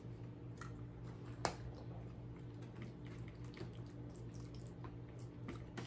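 Quiet eating sounds: chewing with small wet mouth clicks and a plastic fork picking at pasta in a plastic container, over a low steady room hum. The sharpest click comes about one and a half seconds in.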